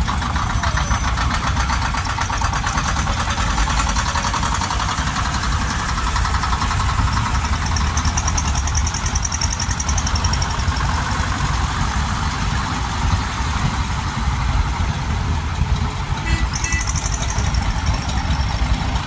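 Several vintage Zetor tractors' diesel engines running as the tractors drive slowly past one after another, with a steady, even beat of the firing.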